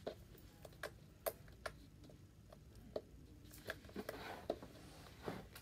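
Slime being poked and pressed with the fingertips, giving quiet, irregular little clicks and pops.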